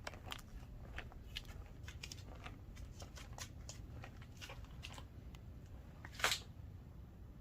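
Light, irregular clicks and rustles over a low steady hum, with one louder brief rustle about six seconds in.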